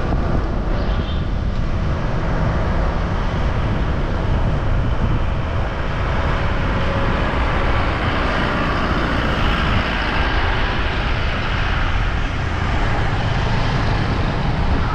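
Steady wind rush on the microphone of a camera riding on a moving bicycle, over road and traffic noise from passing vehicles.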